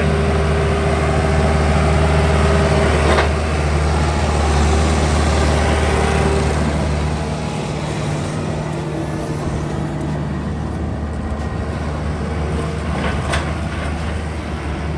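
Farm tractor engine running steadily as it pulls a crop sprayer through the blueberry rows, over a steady hiss. The engine's low hum drops away about halfway through as the tractor moves off.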